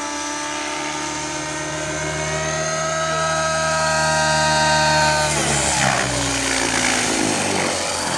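Align T-Rex 700N RC helicopter's nitro engine and rotors running with a high whine of several tones that sags slowly, then falls away sharply about five and a half seconds in as the helicopter comes down to land, leaving a rushing swish of the still-spinning rotor.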